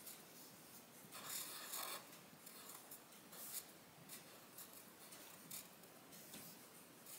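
Faint scratching of black felt-tip markers on paper in short strokes, with a longer, louder scratch between about one and two seconds in.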